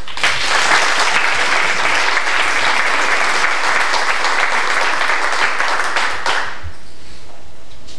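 An audience applauding for about six seconds, then dying away.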